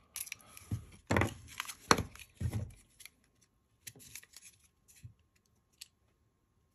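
Hard plastic coin capsules being pried at with a thin metal tool and handled: a string of sharp plastic clicks and scrapes, loudest in the first three seconds, then a few fainter taps.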